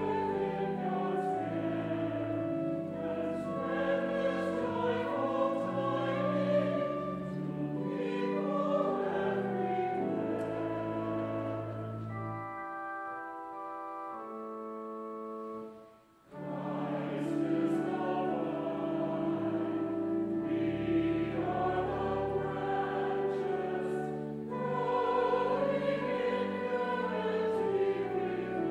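Church music of sustained chords over a moving bass. About twelve seconds in it thins to a quieter held chord without bass, breaks off briefly around sixteen seconds, then resumes full.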